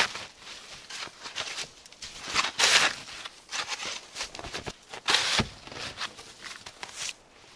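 Snow shovel scraping and scooping snow in a few separate strokes, the loudest about two and a half and five seconds in.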